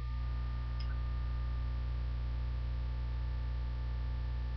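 Steady electrical mains hum with a low buzz of overtones and a background hiss, picked up by the recording setup.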